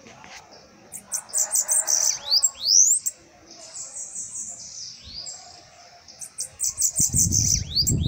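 Bananaquit (sibite) singing in its cage: two phrases of rapid, high-pitched twittering notes with quick rising and falling sweeps, about a second in and again near the end. A low rumble comes in near the end.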